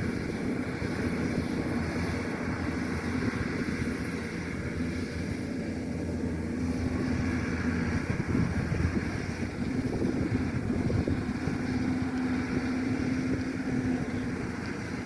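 Kubota DC-105X rice combine harvester's diesel engine running steadily under load, a constant low rumble with a held hum.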